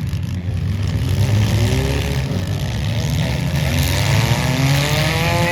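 Demolition derby cars' engines running and revving, the pitch rising and falling over a steady low rumble.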